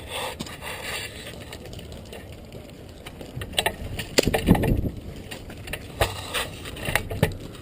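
Airsoft electric guns firing single shots: several sharp mechanical snaps at uneven intervals, starting about three and a half seconds in and thickening near the middle, with a thumpier burst just after four seconds.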